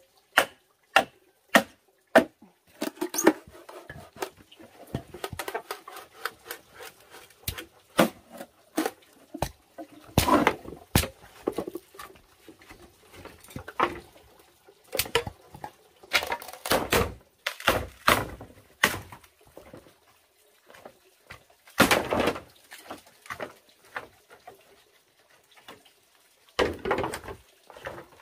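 A machete knocked into the ends of green bamboo poles, splitting them lengthwise: a quick run of sharp knocks, then the crackle of the bamboo tearing apart along its length. Later, louder knocks and clatters as split bamboo halves strike one another.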